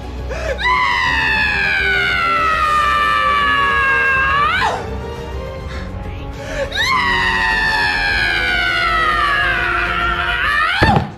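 A man screaming a drawn-out, high-pitched "No" twice. Each long scream slides slowly down in pitch and swoops up sharply at its end.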